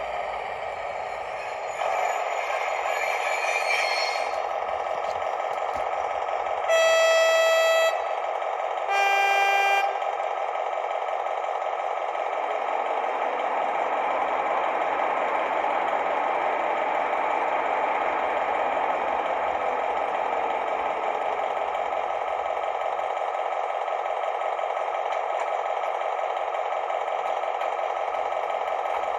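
ESU sound decoder in a Märklin model of a DB class 218 diesel locomotive, playing a steady diesel engine running sound. About seven seconds in it gives two horn blasts, a higher tone then a lower one, each about a second long.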